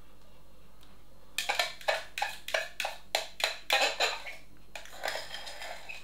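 Spatula scraping and knocking against the side of a mixing bowl, scooping out whipped Dream Topping: a quick run of about a dozen sharp scrapes starting about a second and a half in, then a few softer ones near the end.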